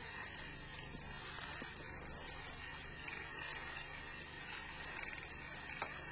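Insects chirping: a steady series of high-pitched trills, about one a second, over a faint background of open countryside.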